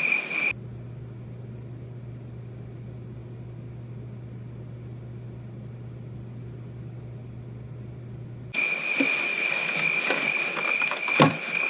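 A steady low hum lasting about eight seconds, cut in sharply between two stretches of outdoor ambience that carry a steady high insect drone, heard at the start and again from near the end.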